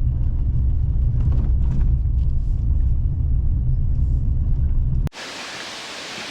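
Steady low rumble that cuts off abruptly about five seconds in, giving way to a quieter, even hiss of rushing water.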